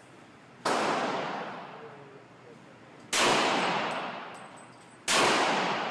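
Three single pistol shots from a Glock 35 in .40 S&W, about two and a half seconds apart, each followed by a long echoing decay.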